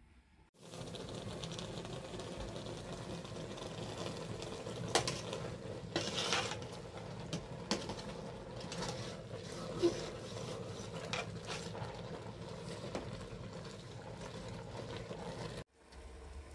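Metal ladle stirring and scraping in a large aluminium cooking pot, with scattered sharp clinks against the pot over a steady hiss. It starts about half a second in and cuts off abruptly near the end.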